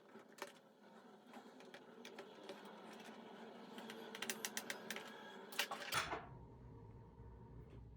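Rapid small clicks, taps and scrapes of a tool and fingers working on a laptop's plastic bottom case, growing busier before cutting off abruptly to a low steady hum.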